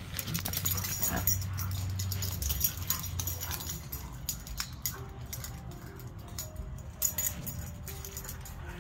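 Two huskies play-fighting, vocalizing at each other amid quick scuffling and clicking sounds.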